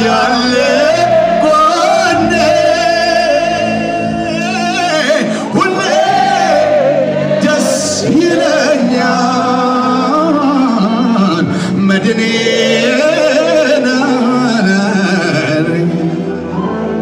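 Live Ethiopian Protestant worship song (mezmur): a solo male voice sings long, wavering held notes over a band, heard from the audience in a large hall.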